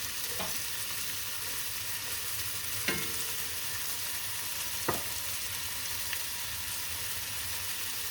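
Garlic and onions frying in butter and olive oil in a pan, a steady sizzle, with a utensil knocking against the pan three times as the food is stirred.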